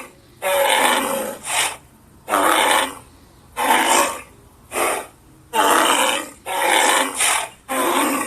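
A person's voice making rough, breathy roars and grunts in imitation of mammoths: about nine bursts, roughly one a second, each half a second to a second long.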